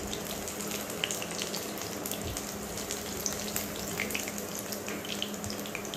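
Chicken pieces deep-frying in hot oil in a cast-iron kadai: a steady sizzle with many small crackles and pops.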